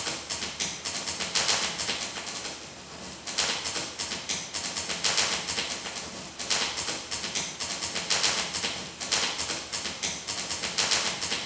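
Paper rustling and crackling in repeated bursts, handled and crumpled.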